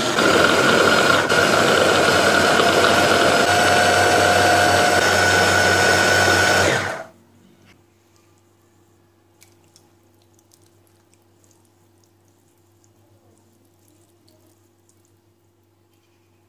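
Braun hand blender driving its chopper bowl attachment, running steadily as it purées tomatoes, cucumber, onion and peppers into ezme. About seven seconds in it stops abruptly, leaving only a faint steady hum.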